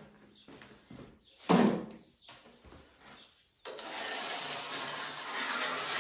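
Plastering trowel working cement mortar onto a wall edge: a short, loud scrape about a second and a half in, then a steady rubbing scrape over the second half.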